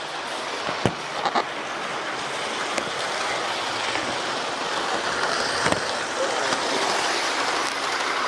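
Hornby Railroad Class 37 model locomotive running on its track hauling carriages: a steady whirr and rumble of motor and wheels that grows louder, with a few sharp clicks along the way.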